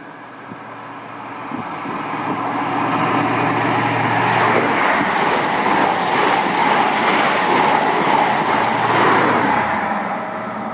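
Train passing non-stop at speed through a station. Its rushing, rattling noise builds over the first few seconds, stays loud through the middle, then eases off near the end.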